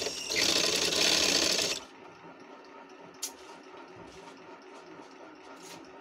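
Sewing machine stitching a short run of about a second and a half, then stopping, with a single sharp click about three seconds in.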